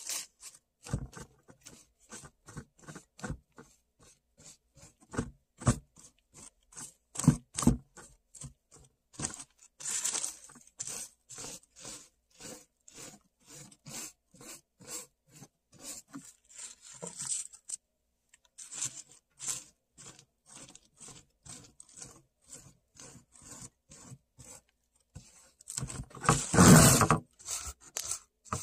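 A foam brush dabbed over crumpled paper on a board, short pats coming about three a second. Near the end comes a longer, louder rustle as the papered board is handled.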